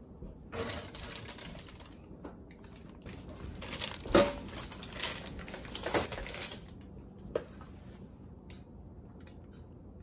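Metal baking sheet scraping and rattling as it is slid out along an oven rack, with a couple of sharp knocks as it is handled and set down, and a single click a little later.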